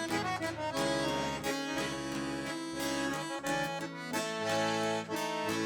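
Instrumental break of a sertanejo ballad: an accordion plays the melody over strummed and plucked guitar accompaniment.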